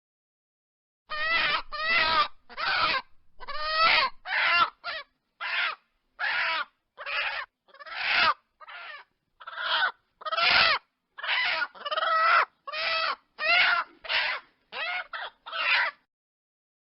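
Chicken squawking: a run of about twenty short, harsh calls in quick succession, starting about a second in.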